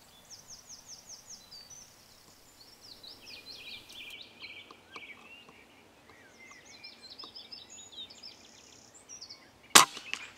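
Songbirds singing in rapid chirps and trills over quiet countryside, then near the end a single sharp report from a Theoben MFR .22 pre-charged air rifle firing at a rabbit, with a fainter knock a moment later.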